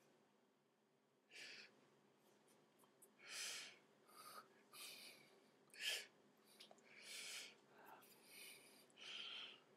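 Quiet, short breathy puffs and mouth noises from a person signing without speaking, coming irregularly about once a second. The sharpest comes just before six seconds in.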